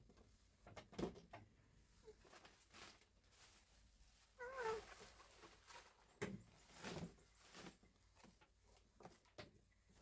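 Knocks and rustles of a woven basket, a wooden stick and a plastic bag being handled on a bamboo floor, with a single short wavering mewing cry a little under halfway through.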